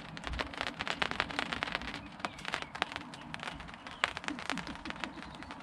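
Raindrops pattering irregularly on a tarp awning overhead.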